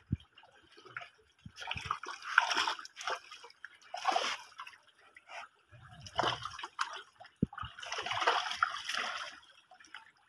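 Pond water sloshing and splashing in irregular bursts as a wading man drags and lifts a triangular bamboo-framed fishing net through it.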